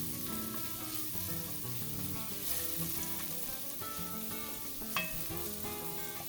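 Sliced garlic, red onion and turmeric frying in oil in a pot with a steady sizzle, and a sharp click about five seconds in.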